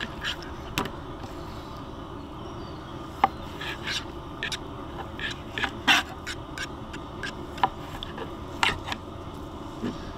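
Knife slicing raw meat on a wooden cutting board: the blade scrapes through and knocks against the board in short, sharp, irregular clicks.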